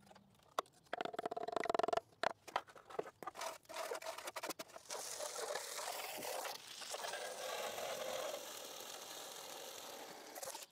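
Metal clinks and scrapes as rusty exhaust pipe sections are handled, with a brief buzzing rattle about a second in. From about halfway there is a loud, steady hiss from a hose-fed tool working on a part set on an old tyre, which cuts off suddenly.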